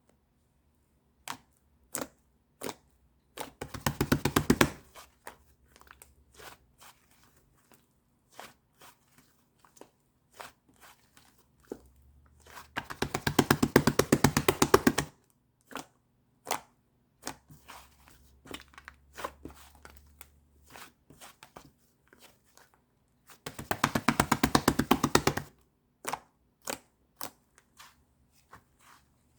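Slime being pressed and stretched by hand, giving scattered sticky clicks and pops, with three spells of rapid crackling clicks a few seconds long.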